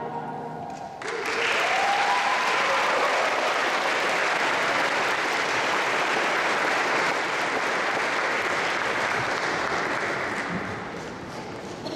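Audience applause that breaks out suddenly about a second in, as the vocal jazz choir's last chord dies away, with a rising cheer just after it begins. The clapping stays steady, then thins near the end.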